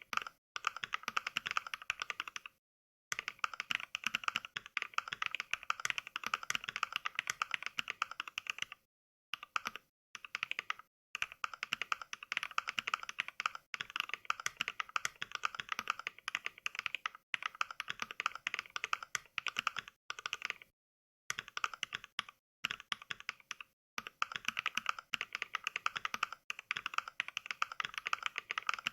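Simulated mechanical-keyboard typing from the Mechvibes app playing its NK Cream switch sound pack on each keystroke. Fast continuous runs of clicks are broken every few seconds by short pauses of dead silence.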